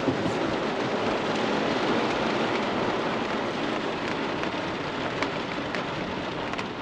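Heavy rain pouring down as a steady, dense hiss, with scattered sharper drop ticks.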